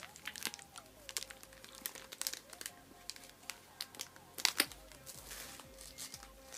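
Wrapper of a Hershey's milk chocolate bar crinkling and crackling in irregular bursts as it is handled and opened.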